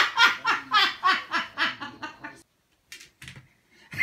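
A person laughing hard: about nine quick bursts over two seconds, each sliding down in pitch, then the laughter stops. A few faint clicks follow.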